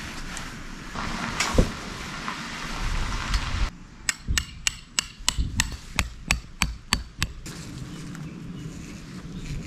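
Steady noise with one sharp thump about one and a half seconds in, then, after a sudden change, a quick even run of sharp knocks, about three a second.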